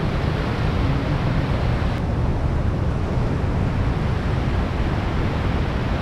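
Swollen, muddy river pouring over a long low weir and churning through the rapids below: a steady, unbroken rush of water.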